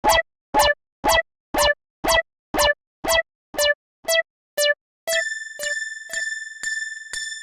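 Level-crossing warning alarm sounding its 'kan-kan' strokes, about two a second. About five seconds in it changes to a brighter, higher bell-like tone whose ring carries on between strokes.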